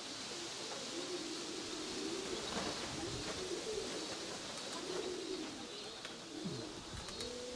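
Pigeons cooing, one rolling coo after another, some overlapping, over a steady hiss.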